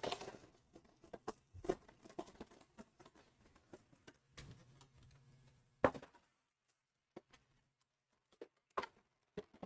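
Cardboard collector box being opened and handled by hand: scattered small taps, scrapes and rustles of cardboard and plastic, with one sharper knock about six seconds in, then a couple of seconds of near silence.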